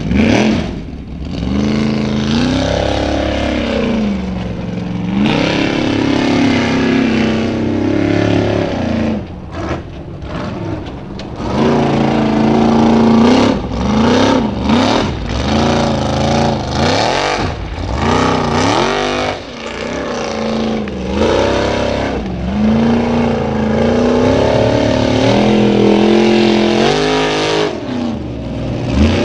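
Formula Offroad hillclimb buggy's engine revving hard on the climb, its pitch rising and falling again and again as the throttle is opened and lifted, with several short dips where it backs off.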